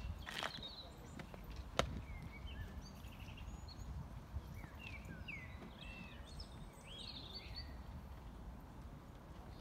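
Small birds chirping and singing in short, quick calls over a steady low outdoor rumble, with a single sharp click about two seconds in.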